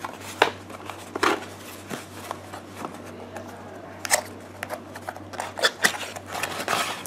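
Hands handling and opening a kraft cardboard box: scattered scrapes, taps and rustles of cardboard, with a quicker run of them in the last second or two.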